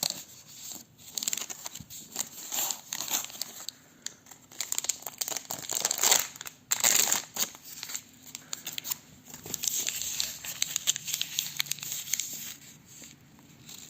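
Plastic snack packaging crinkling and rustling in irregular bursts as it is handled, loudest about halfway through.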